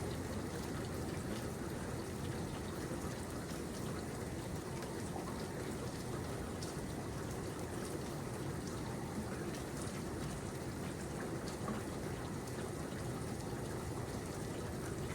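Steady rainfall, an even hiss with scattered faint drop ticks.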